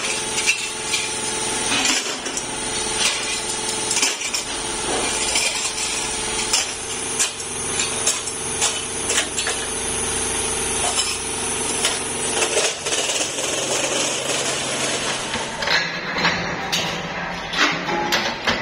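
Sheet-metal tractor air-filter housings clanking as they are tossed one by one into a metal wheelbarrow and against each other: irregular metallic knocks, about one or two a second, over a steady workshop machine hum. Near the end the sound changes to a press shop with sharper knocks.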